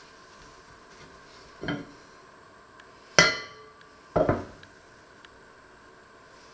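A metal pot and dishes being handled and set down on a wooden kitchen worktop: a dull knock, then a sharp clank with a short ring about three seconds in, then a double knock a second later.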